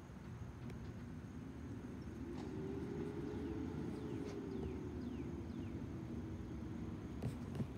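Distant vehicle engine running over low traffic rumble, its hum rising a little in pitch and level, holding, then easing back off.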